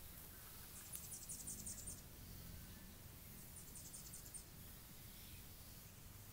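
Faint high-pitched chirping from a small animal: two short trills of rapid pips, about seven a second, the first about a second in and the second a couple of seconds later, over a faint low rumble.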